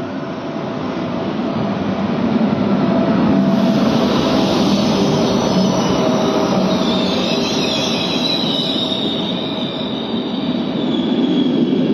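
Trenitalia Intercity train, an electric locomotive hauling coaches, pulling in alongside the platform: wheels rumbling on the rails, louder over the first few seconds as the coaches come alongside. A high metallic squeal sets in about seven seconds in.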